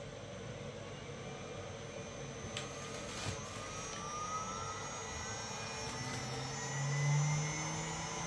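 0.8 kW brushless spindle motor of a DIY CNC router spinning up clockwise under its VFD toward 12,000 RPM: a whine that rises steadily in pitch, with a thin steady high tone above it.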